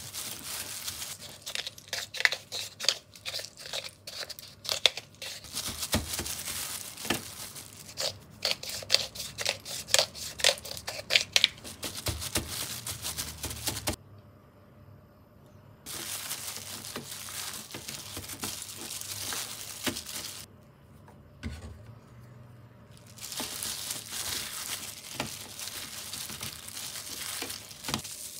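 Disposable plastic glove crinkling and rustling while it handles and rubs seasoning into a raw beef block in a stainless steel tray. Quick runs of sharp crackling clicks fill the first half, then steadier rustling with two short quiet pauses.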